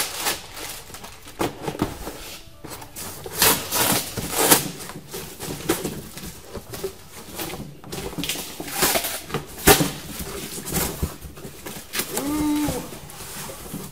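Cardboard and plastic rustling and crinkling as gloved hands rummage through a cardboard box and pull items out, with irregular knocks of objects being handled.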